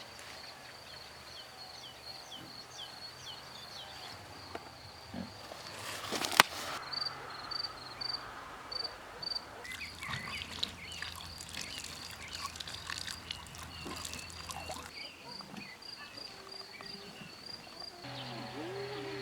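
Insects chirping steadily outdoors, a high pulsing trill throughout. Scattered knocks and clicks, the sharpest about six seconds in.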